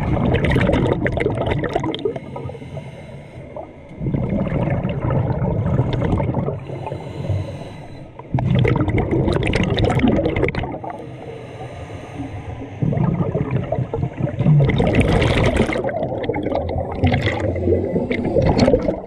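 Scuba diver breathing through a regulator underwater: exhaled bubbles gurgle out in loud bursts of two to three seconds, about every four seconds, with quieter inhalations between.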